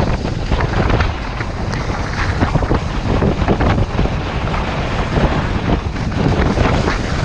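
Heavy wind buffeting the microphone, with irregular scraping and rustling underneath.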